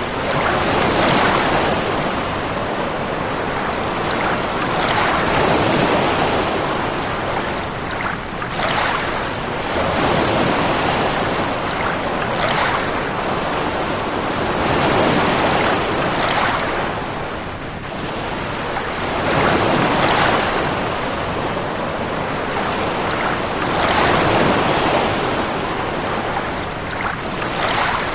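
Steady rushing of surf, swelling and easing every three to four seconds as waves wash in.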